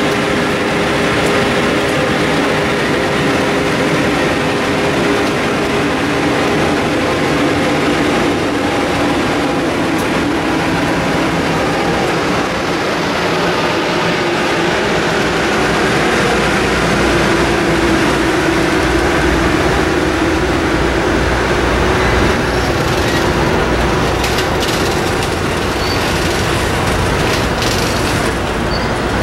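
Amtrak Superliner bilevel passenger cars rolling past on steel wheels, a steady rumble with a faint hum and a few wheel clicks near the end.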